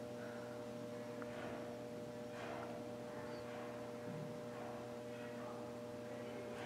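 Steady electrical hum of room tone: a low mains-type hum with a couple of fainter, higher steady tones, and faint soft rustles now and then.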